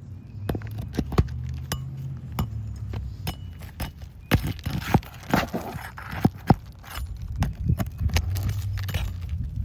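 Irregular sharp clinks, taps and scrapes of metal hand tools working loose asphalt roof shingles, with a low rumble that swells twice.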